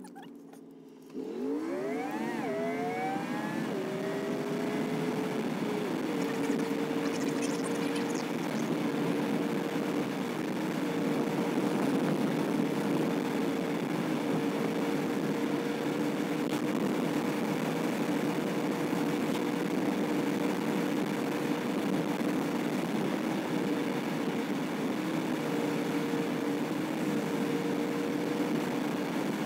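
Car accelerating away from a stop, heard from inside the cabin: the engine's pitch climbs in a few quick rising sweeps just after the first second, then settles into a steady drone with tyre and road noise as it cruises.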